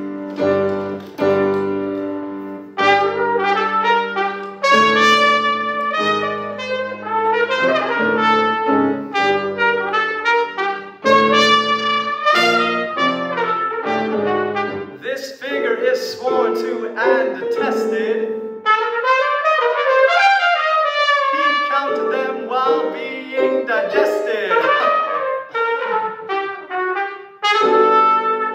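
Trumpet and piano playing a classical piece: a trumpet melody of short phrases over piano chords. About two-thirds of the way through the piano drops out for a couple of seconds while the trumpet plays bending notes, then the piano comes back in.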